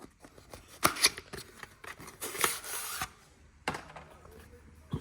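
Packaging being handled as the playmat comes out of the collection box: a few sharp clicks and taps, with a rustling scrape of packaging about two seconds in that lasts under a second.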